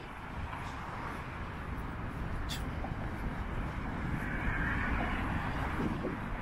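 Steady road traffic on a city bridge, with a vehicle passing that swells in loudness about four to five seconds in.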